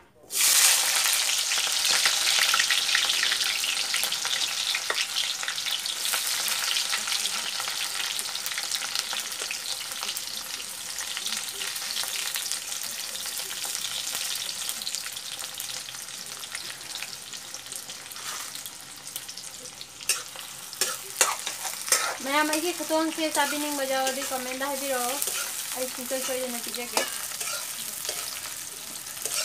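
Ingredients dropped into hot oil in a steel wok burst into loud sizzling about half a second in, then keep sizzling steadily as they are stirred. Late on come a few sharp knocks of the spoon against the wok and a drawn-out, wavering pitched sound lasting several seconds.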